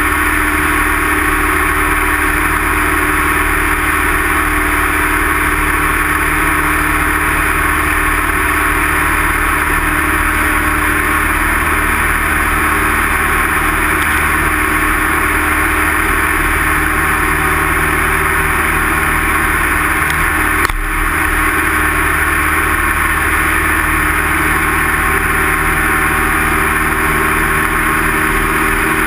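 Light single-engine piston airplane's engine and propeller running steadily in flight, heard from inside the cockpit. There is one short click about two-thirds of the way through.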